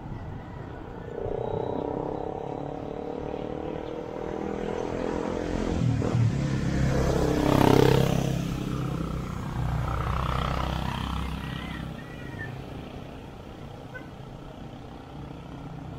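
Road traffic: a motor vehicle's engine hum builds and passes close by, loudest about eight seconds in, then fades.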